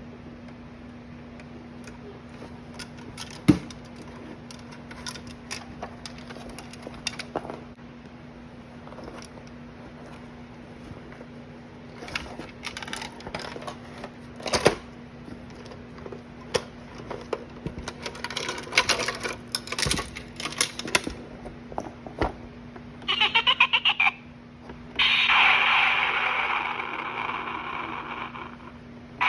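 A plastic toy carrying case being handled, with scattered clicks and taps. Near the end the case's built-in sound goes off: a fast string of pulses, then a loud sustained electronic noise that slowly fades.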